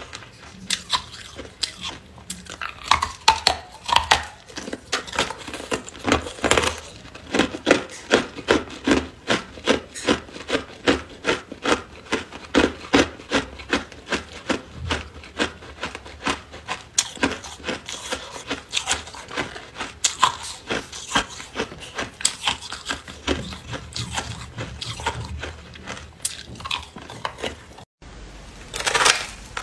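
Ice being bitten and chewed close up: a steady run of loud crunches, about two a second, breaking off briefly near the end.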